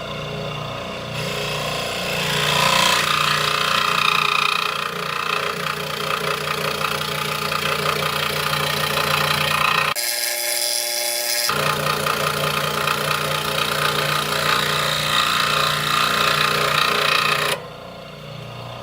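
Scroll saw running and cutting through the workpiece: a steady motor hum with a fast rattle from the blade strokes. The sound drops sharply about a second before the end.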